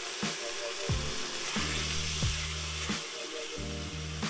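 Chopped onion, garlic and hot pepper frying in oil in an enamel pot, with a steady sizzle as sweet paprika is stirred in with a spatula.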